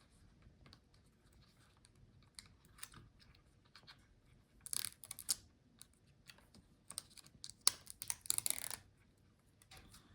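Light clicks and taps of hands working, with short crinkly rustles about five seconds in and again around eight seconds, as the protective film is peeled off a silicone adhesive strip and the strip is pressed onto the laptop's back cover.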